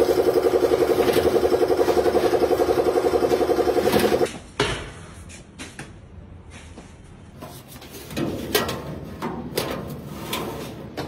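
A machine in an idli-making kitchen runs with a loud, fast, even pulsing, cutting off about four seconds in. After that, metal idli trays clatter and knock as they are handled and stacked.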